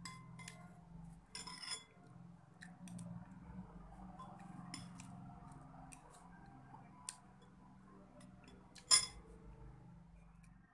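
Metal spoon clinking and scraping against a ceramic soup bowl of baso aci, in scattered small clicks. The loudest, sharpest clink comes about nine seconds in.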